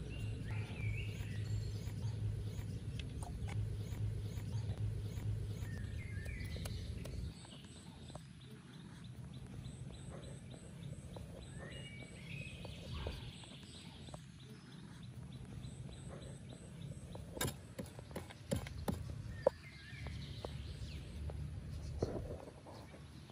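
Short high chirping calls that repeat about every six seconds, over a low steady rumble that stops about seven seconds in; a few sharp clicks come in the second half.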